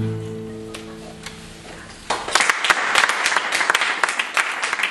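The last acoustic guitar chord of the song rings out and fades, and about two seconds in the audience breaks into applause.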